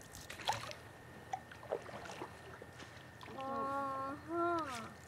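Canoe paddle strokes in calm water, a few short splashes and drips. About three seconds in, a voice holds one long drawn-out note that slides up and then down near the end; it is the loudest sound here.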